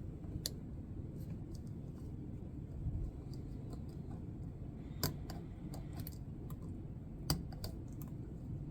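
Lock picking a padlock: scattered light metallic clicks of the pick and tension wrench working the pins, the sharpest about five seconds in and again about seven seconds in, over a steady low background noise.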